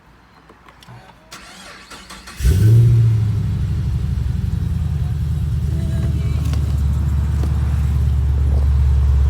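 Holden Commodore SS V8, with modified air intake and exhaust, starting about two and a half seconds in. It flares briefly at start-up, then settles into a steady, low idle.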